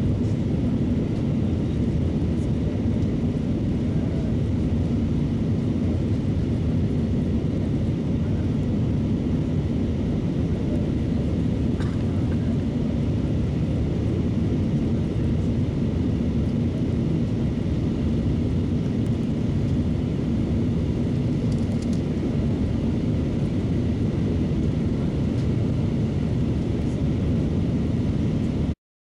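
Steady engine and air noise inside the cabin of an Airbus A319 airliner in flight just after takeoff. It cuts off suddenly near the end.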